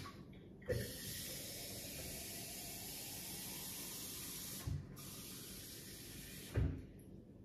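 Kitchen tap running into the sink for about six seconds, water hissing steadily as a glass tumbler is filled to soak. There is a knock as the water starts, a lighter one partway through, and another as it is turned off.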